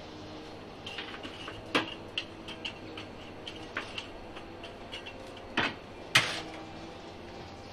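Long-handled metal shovel scraping and clinking against glowing charcoal and the rim of a metal bucket stove as coals and ash are shovelled and spread: a string of sharp clicks and knocks, the loudest about six seconds in, over a faint steady hum.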